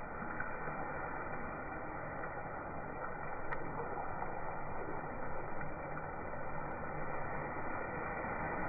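Steady hiss of watery masala gravy cooking in a kadai as it is stirred with a spatula, with one light tap about three and a half seconds in.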